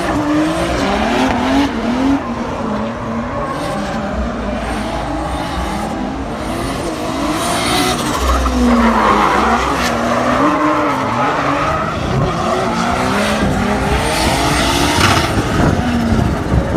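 Cars drifting: engines revving up and down as the throttle is worked, with tyres squealing and skidding on tarmac.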